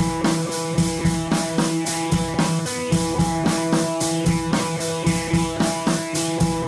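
Background music with drums and guitar, a steady beat.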